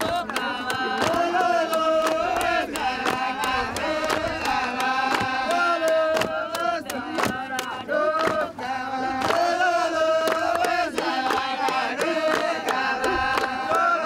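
A group of men chanting a dance song together in unison, the melody rising and falling in short repeated phrases, with frequent sharp hand claps.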